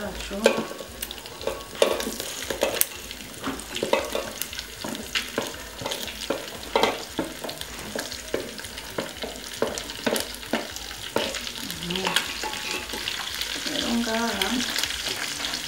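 Browned meat sizzling in a metal pot while sliced onions are scraped off a metal plate into it with a wooden spatula: a steady frying hiss with frequent irregular knocks and scrapes of spatula and plate against the pot.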